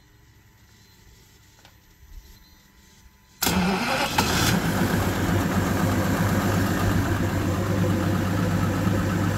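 Evinrude E-TEC G2 200 HP two-stroke V6 outboard starting about a third of the way in: it fires at once with a brief burst, then settles into a steady idle.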